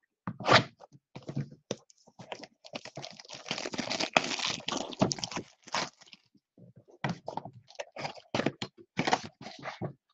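Plastic wrap crackling and tearing as it is cut and stripped from a cardboard trading-card box, loudest in the middle. Cardboard clicks and knocks from the box being handled come before and after.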